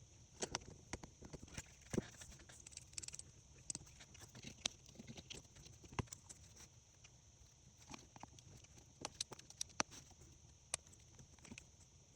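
Irregular small clicks and taps of hand tools and parts on a phone being worked on, some sharper knocks among them, over a steady faint hiss.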